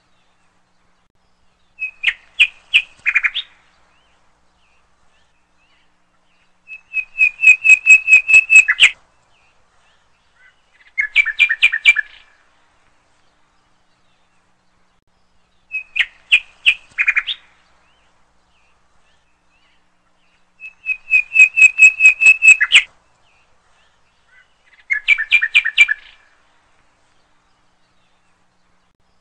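A bird chirping in short bursts of rapid trilled notes, several seconds apart.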